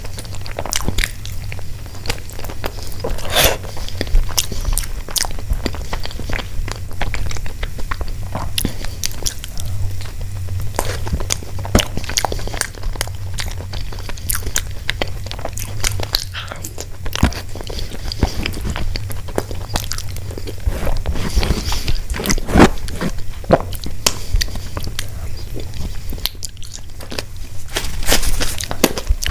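Close-miked chewing and eating mouth sounds of a person eating soft food with her hands: many short, sharp wet clicks scattered unevenly, over a steady low hum.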